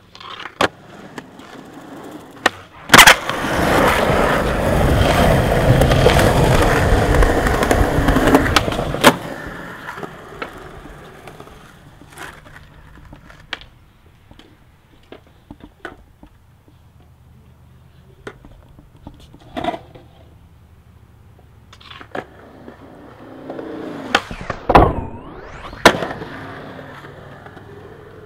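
Skateboard wheels rolling over concrete, loudest for several seconds early on, with sharp clacks of the board popping and landing scattered through. Near the end comes a longer scrape whose pitch falls and rises.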